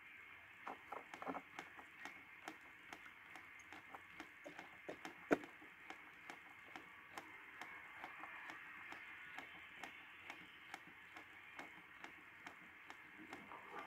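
Homebuilt 40-metre SDR receiver in LSB being tuned up the band: faint, narrow band hiss with brief fragments of signals passing by, and a steady run of sharp clicks, about three a second, while the frequency steps.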